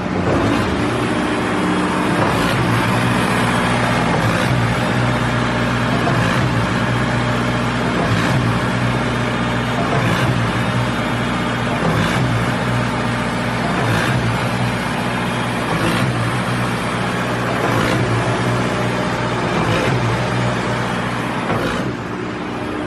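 Four-cylinder 4105 diesel engine of a small concrete pump running steadily at raised throttle, with a short knock about every two seconds as the pump's pistons change stroke.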